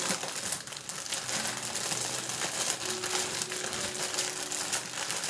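Steady crinkly rustling with many small crackles as hands work seasoning onto raw chicken breasts.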